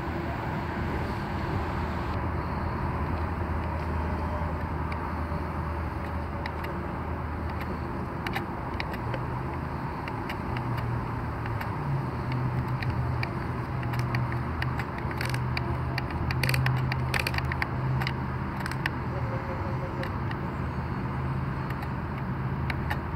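Small electric gear motors of a Double E 17-channel remote-control excavator whirring steadily as the boom moves and the upper body swings. The hum steps up in pitch about ten seconds in, and scattered clicks and scrapes come as the bucket works the dirt.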